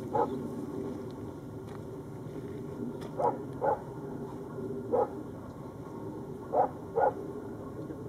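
A dog barking: about six short single barks, two of them in quick pairs, over a steady low background hum.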